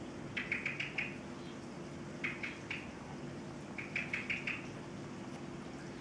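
Male common blackbird giving an excited alarm call of short, sharp chinking notes in three quick bursts of three to five notes. A steady low hum runs underneath.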